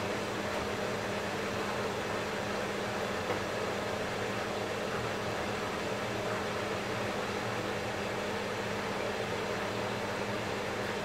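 Steady motor hum from a running kitchen appliance or fan, held at one fixed low pitch with a hiss over it. There is one soft click about three seconds in.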